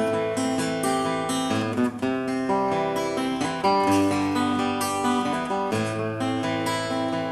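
Acoustic guitar strummed in a steady rhythm, the chord changing about every two seconds.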